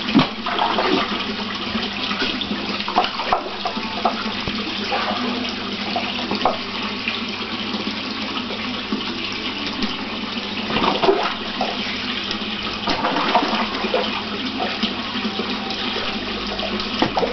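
Steady rush of running water into a pond, broken by repeated sudden splashes as large catfish, redtails among them, strike and thrash at the surface while being fed. The biggest splashes come right at the start, about eleven seconds in and near the end.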